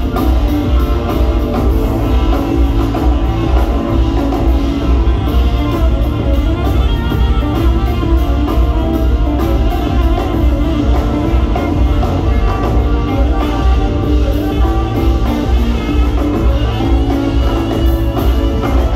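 Big band playing live: saxophones, brass and sousaphone with electric guitar, keyboard and drum kit over a heavy bass, in a techno-jazz style.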